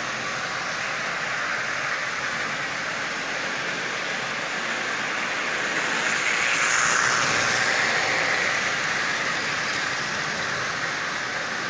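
Lionel electric toy trains running on metal track: a steady rolling clatter and motor hum that grows louder for a few seconds as one train passes close, about seven seconds in, then eases off.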